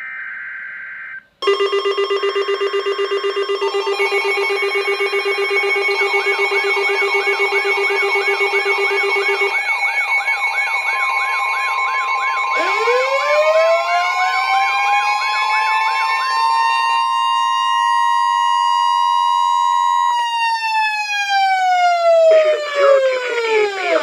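Several NOAA weather radios sounding their alert alarms together for an Emergency Alert System warning. A short burst of SAME data tones comes first, then a chorus of overlapping steady beeps and warbling tones. About halfway through, a siren-like tone sweeps upward, holds, and falls away near the end.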